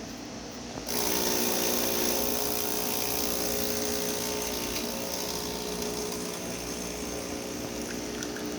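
Breville BES830XL espresso machine's newly replaced vibratory pump starts about a second in and runs with a steady hum while pulling a shot of espresso. It is building good brewing pressure.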